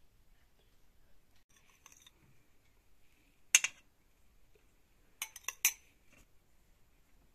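Metal spoon clinking against a glass bowl and a metal serving tray while saffron rice is spooned out: faint scraping early, one sharp clink about three and a half seconds in, then a quick run of four or five clinks just after five seconds.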